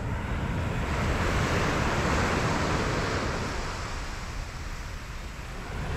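Sea surf: a wave breaking and washing up the beach, swelling about a second in and fading away by about four seconds, over wind rumbling on the microphone.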